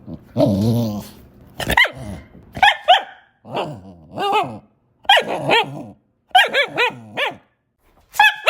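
A dog barking repeatedly, often two or three barks in quick succession. It opens with a longer, lower-pitched call.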